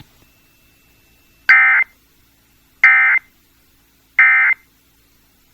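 Emergency Alert System end-of-message (EOM) data bursts: three short bursts of the harsh, buzzy digital FSK tone, about a second and a half apart, signalling the end of the alert before regular programming returns.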